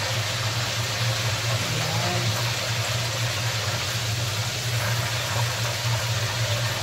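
Hot oil sizzling in a frying pan as breaded chicken cordon bleu fries and pieces are lifted out with tongs, over a steady low hum.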